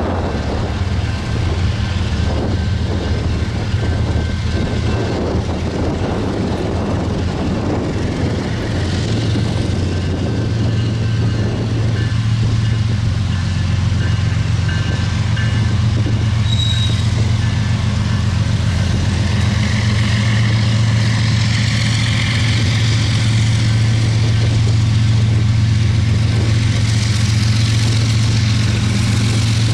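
BNSF 7390's diesel locomotive engine running with a steady low drone that grows louder about halfway through.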